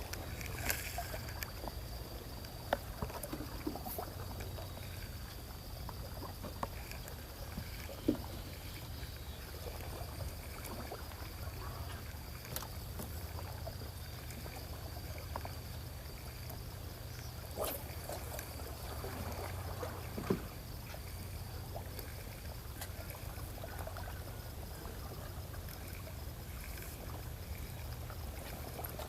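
Seaside ambience: a steady low rumble with water lapping, a faint steady high whine, and scattered small clicks and taps.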